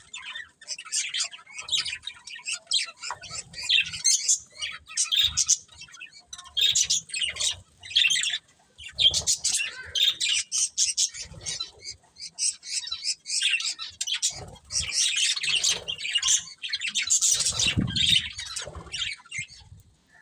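Budgerigars chirping, chattering and squawking in rapid, overlapping bursts.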